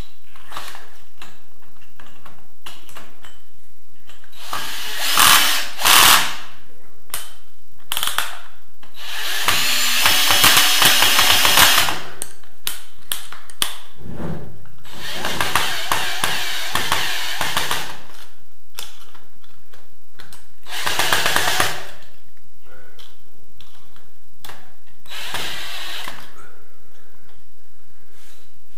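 Stanley cordless drill driving a screw into a chrome wall fitting in repeated bursts: two short ones about five seconds in, a longer run of about three seconds near ten seconds, then several more, with small handling clicks between them. The screw is going in very tight.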